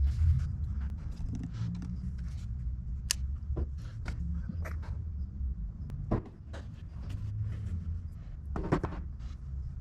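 Scattered light clicks and knocks of hands handling parts and wiring, over a steady low rumble.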